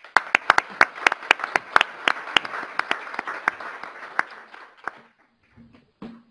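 Audience applauding, with a few sharp claps standing out above the general clapping. It starts at once and dies away about five seconds in.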